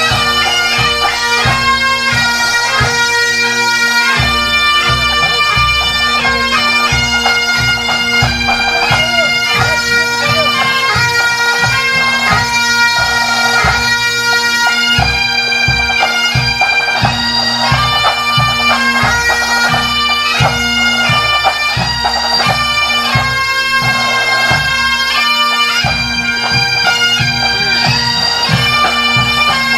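Pipe band playing a march: bagpipes with steady drones under the chanters' melody, and drums beating time.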